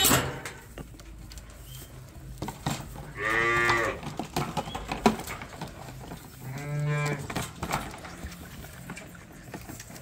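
Sheep bleating: two long calls, about three seconds and about six and a half seconds in, with small knocks and clicks between them.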